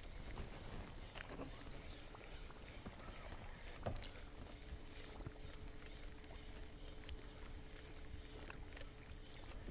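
Faint water sounds and scattered light clicks as a topwater prop bait is retrieved across the lake surface; one sharper click about four seconds in. A faint steady hum comes in about a second and a half in.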